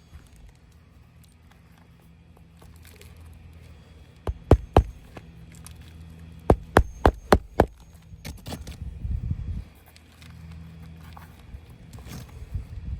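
Hammer driving roofing nails into an asphalt shingle: three sharp strikes about four seconds in, then a quick run of five, then more strikes near the end.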